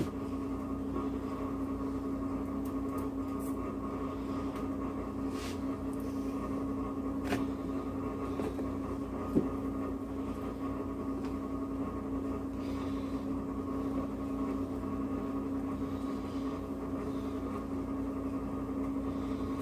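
A steady machine hum with a few faint, short taps and clicks.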